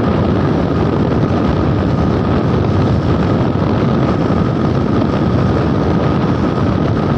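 Steady wind rush on the microphone mixed with the running engine and road noise of a moving motorcycle cruising at a constant speed.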